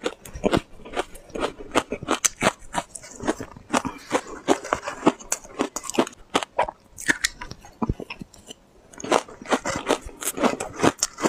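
Mouth chewing and biting through powder-coated shaved ice, a fast run of crisp crunches. A brief lull comes about eight seconds in before the crunching starts again.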